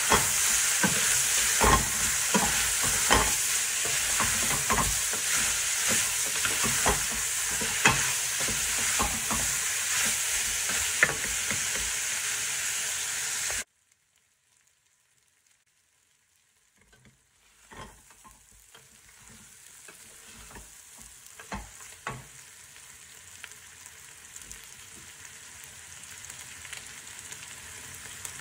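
Meat and onions sizzling as they fry in a stainless steel pot, with a wooden spatula stirring and knocking against the pot. About halfway through, the sound cuts out for a few seconds. A quieter sizzle then returns and slowly grows louder, with occasional knocks.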